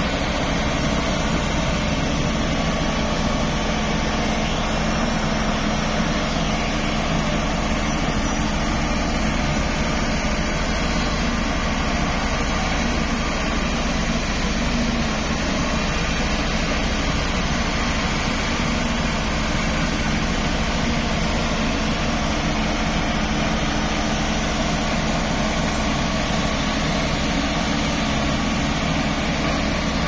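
Caterpillar CS54B single-drum road roller's diesel engine running steadily as the roller drives over a dirt road bed.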